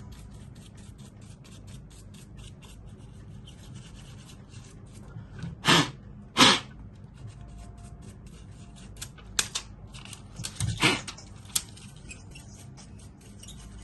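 Hands handling a laptop's RAM module and open case: light rubbing with a run of faint ticks in the first few seconds, then several louder scrapes about six seconds in and again around ten to twelve seconds.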